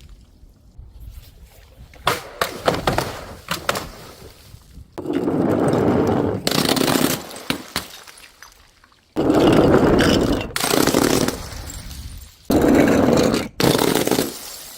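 Glass breaking and crunching. A quick run of sharp cracks and clinks comes first, then several dense stretches of shattering and crunching, each a second or so long, that start and stop abruptly.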